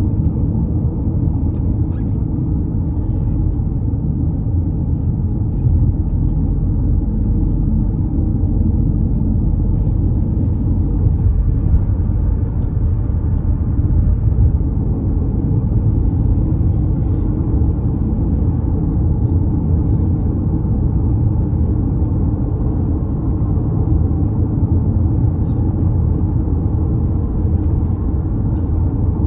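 Steady low rumble of tyre and engine noise inside a car's cabin while driving at road speed.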